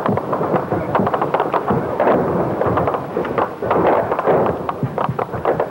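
Battlefield gunfire: a dense, irregular crackle of many shots a second, with no let-up.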